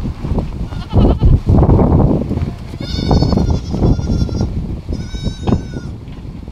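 Goats bleating around a feed trough: a few high-pitched calls in the second half, over low, gusty noise.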